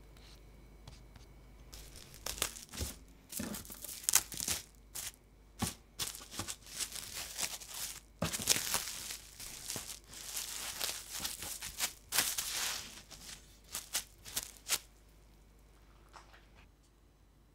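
Plastic cling wrap being handled and pressed around a loaf cake: a rapid, irregular run of crackles and rustles that starts about two seconds in and stops a few seconds before the end.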